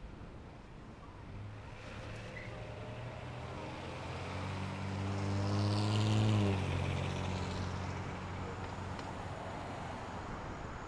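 A motor vehicle driving past close by. Its engine hum grows louder and peaks about six seconds in, where the pitch drops as it goes by, then fades away.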